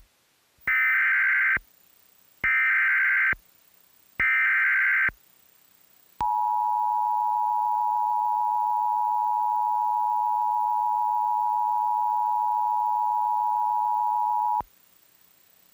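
Emergency Alert System alert opening: three short bursts of SAME header data, about a second each, then the two-tone attention signal (853 and 960 Hz together) held steady for about eight seconds before cutting off. The tones announce a severe thunderstorm warning bulletin.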